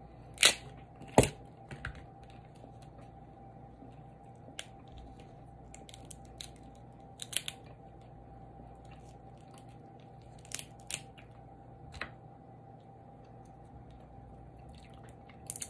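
Crab leg shells cracked and snapped apart by hand: two sharp cracks about a second apart near the start. Scattered small clicks and crunches of shell follow as the meat is picked out.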